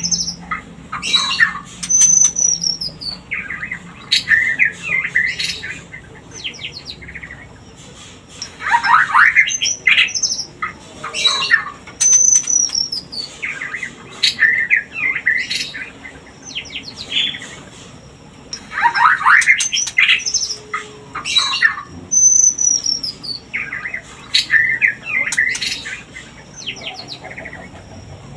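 White-rumped shama calls: harsh chattering and chirps with a high, falling whistle, the same phrase repeating about every ten seconds. It is a lure call meant to bring shamas into breeding condition.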